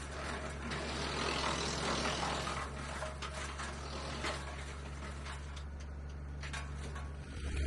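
Frontier DH8 PTO-driven wood chipper running off a tractor, a steady low engine hum under a rushing noise, with scattered clicks and knocks.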